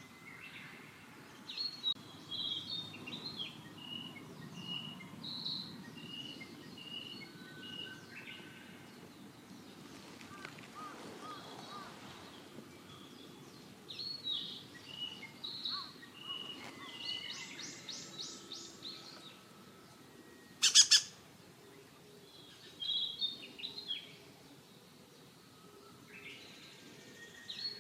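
Birds chirping and calling in short repeated phrases, with one sharp, loud burst of sound about 21 seconds in.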